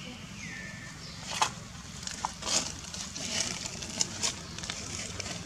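A baby long-tailed macaque gives a short falling squeak about half a second in. A handful of brief dry crackling, scraping sounds follow, the loudest about a second and a half in.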